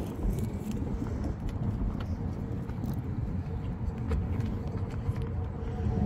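Steady low outdoor rumble with a faint steady hum and a few faint clicks.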